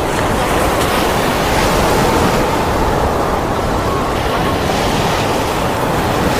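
Rainstorm: a loud, steady rushing of heavy rain and wind, with wind buffeting the microphone.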